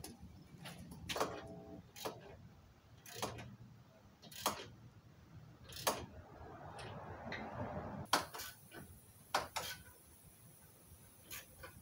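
Irregular sharp metallic clicks and clinks of hand tools and bolts being worked on the truck's front bumper winch plate, about ten separate strikes with a short ringing clink near the start. A soft scraping, rustling stretch comes in about six seconds in and stops about two seconds later.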